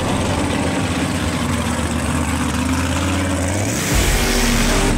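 Mud truck engine running hard as its oversized lugged tires spin in loose sand and dirt. Just before four seconds in, the engine rises in pitch and gets louder, and a hiss of flung dirt comes in with it.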